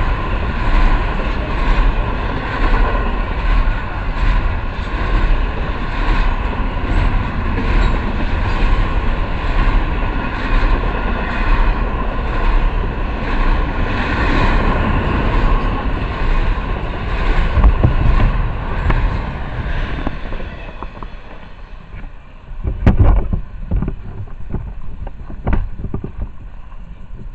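Double-stack intermodal freight cars rolling past at close range: a steady, loud noise of steel wheels on rail with a steady high tone underneath. About three-quarters of the way through it drops away as the train clears, and a few sharp knocks follow.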